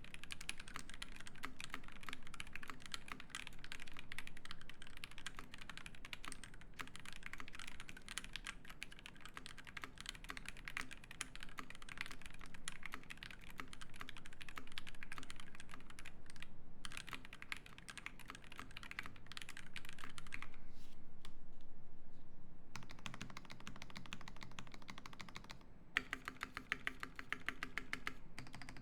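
Typing on an Ikki68 Aurora mechanical keyboard with lubed Alpaca linear switches in an aluminium plate and GMK keycaps: a fast, steady patter of keystrokes. About twenty seconds in the typing stops for roughly two seconds with a duller sound in its place, and near the end the keystrokes come more spaced out and separate.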